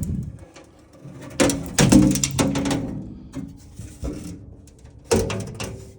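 A trim piece being worked down off the inside of a truck door. There are scraping, creaking and rattling handling sounds, loudest in the first half, and a sharp knock about five seconds in.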